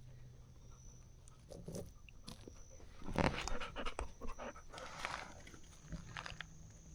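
A dog panting, with quick breaths that come louder about halfway through.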